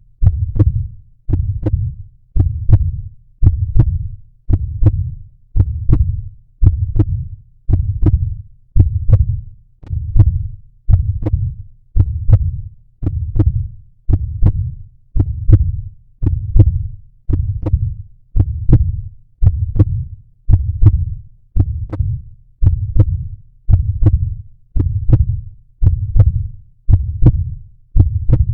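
Heartbeat sounds: a steady lub-dub about once a second, each beat a pair of low thumps.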